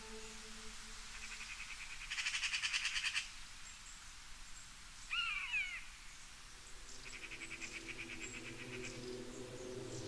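Animal calls: a rapid, high pulsed trill twice, and a short call about halfway through that glides down in pitch. Soft background music fades away at the start and comes back in over the second trill.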